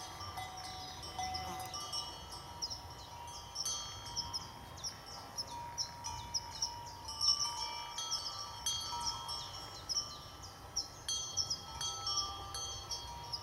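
Bells on the collars of grazing horses ringing irregularly, with many overlapping clinks at several different pitches.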